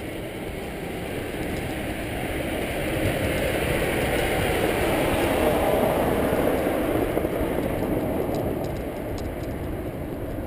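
A car passing on the road alongside, its tyre and engine noise swelling to a peak about halfway through and then fading, over a steady low rumble.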